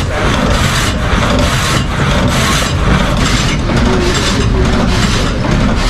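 Water-powered up-and-down (sash) saw cutting through a log, a rasping stroke repeating about two and a half times a second over a steady low rumble.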